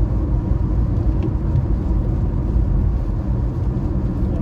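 Car driving, with a steady low road and engine rumble.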